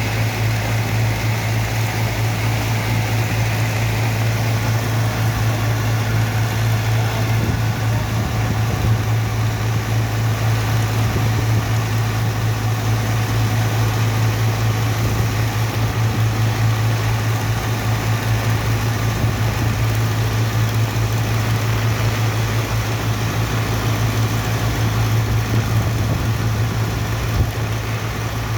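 Heavy engine of a sand-unloading dredge running steadily, a deep constant drone.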